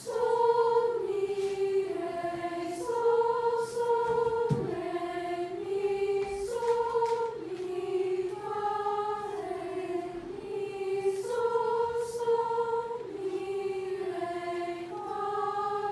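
Youth choir of mostly girls' voices singing a slow solfège pentachord melody exercise. Held notes step up and down, each lasting about half a second to a second.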